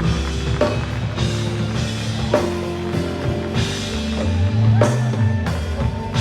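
Music with a drum kit and held instrument notes.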